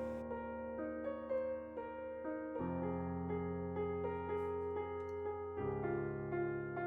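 Slow solo piano music, with melody notes over low notes that change about every three seconds.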